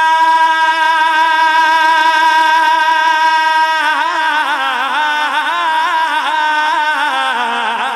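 A male naat reciter singing a held vowel without words: one long steady note, then, about four seconds in, a winding melismatic run with quick turns of pitch.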